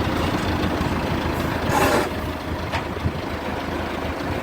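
Heavy truck engine running steadily at idle, with a short sharp hiss of air about one and a half seconds in and a single click a little later.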